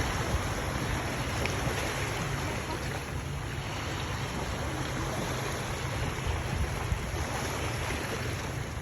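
Steady wind buffeting the microphone over the wash of surf on the beach.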